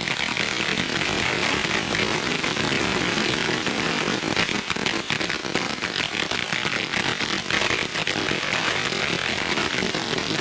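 Ground firework fountains spraying sparks: a steady hiss thick with fine crackles.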